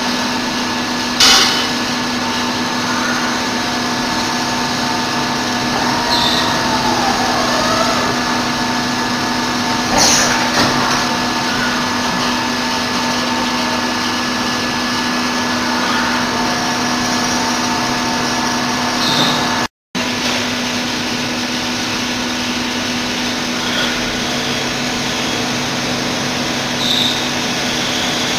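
Five-axis CNC milling machine running: a steady hiss under several steady machine tones, with a short gliding whine and a couple of sharp knocks.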